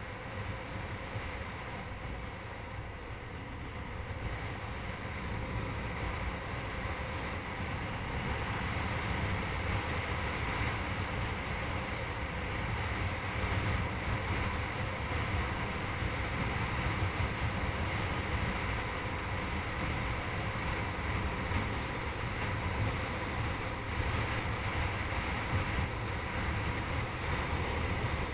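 Steady wind rushing over the microphone of a handlebar-mounted camera on a motorcycle under way on the highway, with the motorcycle's engine running underneath. The rush grows louder a few seconds in, then holds steady.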